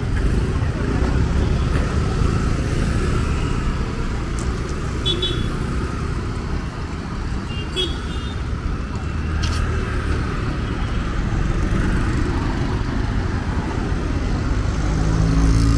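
Street traffic: a steady rumble of small engines from scooters, motorcycles and auto-rickshaws driving by. A few brief high chirps stand out about five and eight seconds in.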